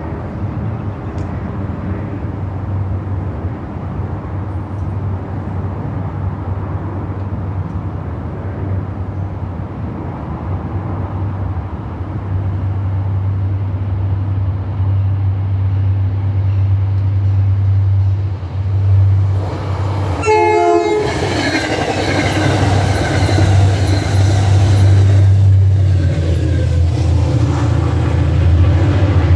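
Diesel commuter train approaching with a low engine rumble that grows louder. About two-thirds through comes a short horn blast, then the train passes close by with a louder spell of wheel and rail noise that eases near the end.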